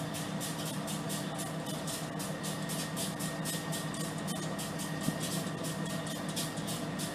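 Steady low hum of an idling diesel locomotive engine.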